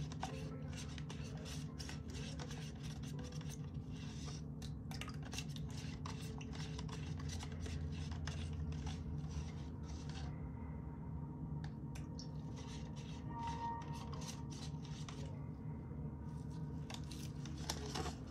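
A stir stick scraping and tapping against the inside of a plastic cup as lumpy paint is stirred, in quick irregular strokes that thin out for a few seconds past the middle. A steady low hum runs underneath.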